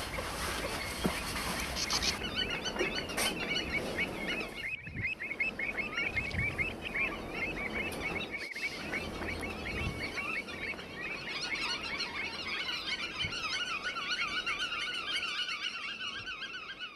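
Many pied avocets calling together: a dense chatter of short notes repeated rapidly and overlapping. The calls fill out after the first couple of seconds and fade out at the end.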